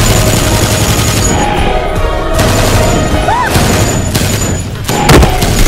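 Dramatic action-film music mixed with gunfire sound effects, and a couple of sharp shots or booms about five seconds in.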